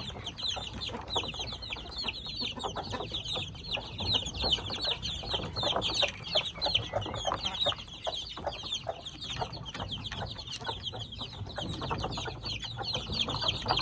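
A brood of five-day-old chicks peeping continuously, many short falling peeps overlapping, with lower clucks from the mother hen among them.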